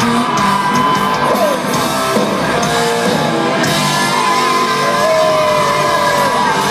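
Live country-rock band playing loud with amplified electric guitars and drums in a concert hall, with long held notes.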